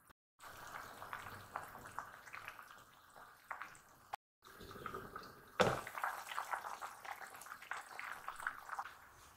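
Liquid bubbling with many small pops and drips, broken off twice for a moment; a single knock a little past halfway.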